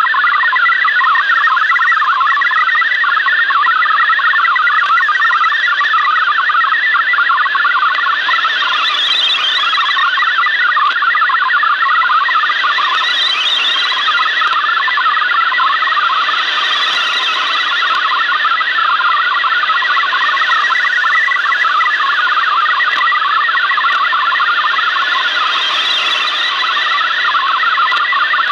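Shortwave receiver playing an MFSK digital text transmission: a rapid, steady warble of hopping data tones over radio hiss, being decoded into text as it plays.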